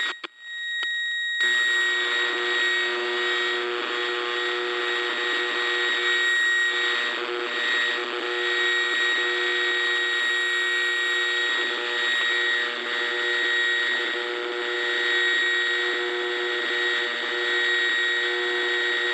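AM radio static: a steady hiss with several steady whistling tones layered through it. It cuts out briefly near the start, then comes back at full strength.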